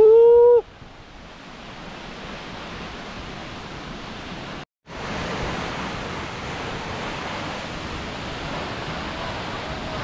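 Steady rushing roar of the Coban Rondo waterfall, quieter in the first half and louder and fuller after a brief break in the audio about five seconds in. It opens with a short, loud pitched sound lasting about half a second.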